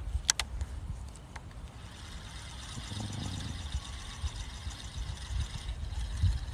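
Quiet outdoor night ambience: a low, uneven rumble with two sharp clicks about a third of a second in and a faint steady high hiss through the middle.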